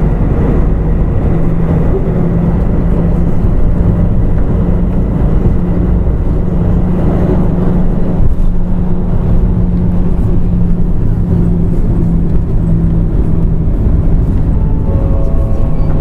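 Mitsubishi PJ-MP35JM city bus running, its engine and drivetrain giving a steady low drone that rises and falls gently with speed.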